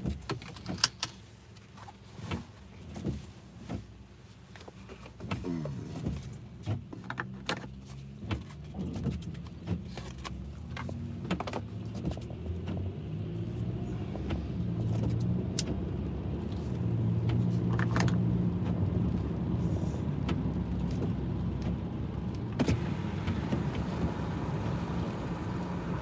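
A car heard from inside the cabin: scattered clicks and knocks in the first half, then a steady low engine hum that grows louder about halfway through.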